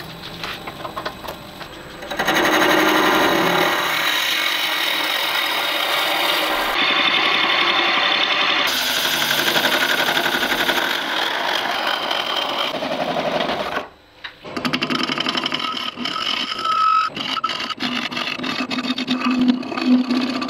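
Wood lathe running while a turning tool cuts a spinning blank of applewood and resin, heard in several short edited segments that change abruptly. About ten seconds in, a drill bit held in the tailstock bores into the end of the spinning blank.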